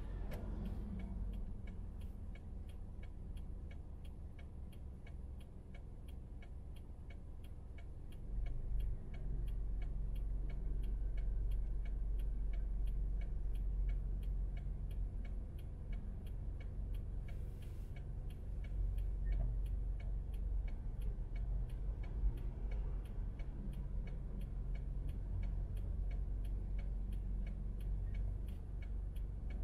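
Car turn-signal indicator ticking steadily inside the cabin while the car waits to pull out, over a low rumble of engine and traffic.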